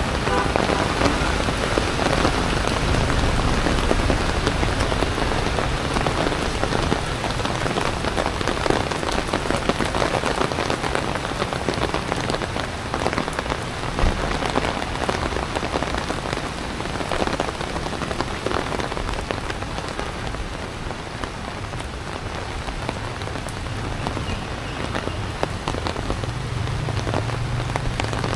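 Heavy tropical rain falling steadily, a dense patter of drops on wet pavement and road, easing slightly past the middle and picking up again near the end.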